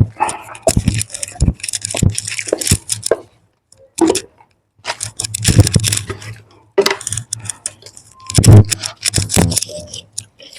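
Kitchen pots and utensils clattering, knocking and scraping in quick, irregular strikes as food is served, with a brief pause about three seconds in.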